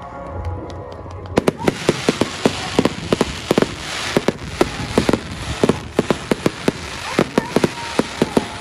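Fireworks bursting in a rapid barrage, sharp bangs several a second over crackling, starting about a second and a half in.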